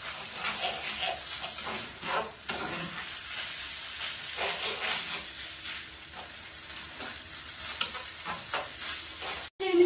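Rice and onions sizzling in butter in a coated sauté pan while a spatula stirs and scrapes them at irregular intervals, as the rice is toasted. The sound breaks off abruptly near the end.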